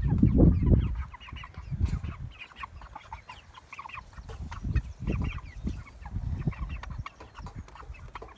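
A flock of broiler chickens clucking softly, with many short calls overlapping. Bursts of low rumble come over them, loudest in the first second.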